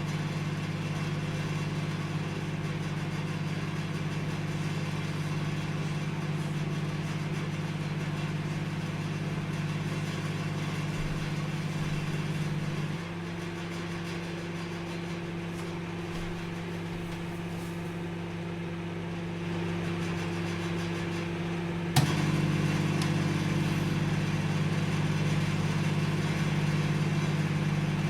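Microwave oven running with a steady low electrical hum. About halfway through the hum drops a little quieter and lower, and about two-thirds through a sharp click brings back the louder hum.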